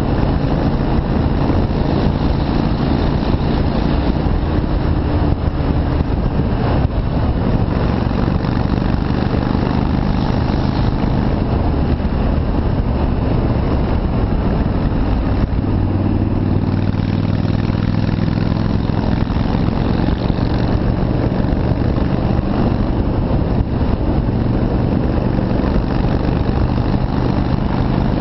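Yamaha Virago V-twin motorcycle engine running on the move, a steady note whose pitch shifts a few seconds in and again about halfway through as the throttle changes.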